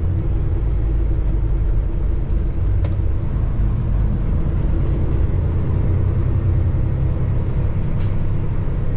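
Steady low rumble of a semi truck's diesel engine and road noise, heard from inside the cab while driving on the freeway.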